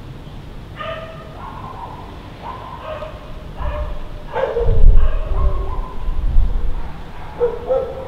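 A dog barking over and over, short pitched calls about once a second. From about three and a half seconds in, a low rumble swells for about three seconds and is the loudest sound.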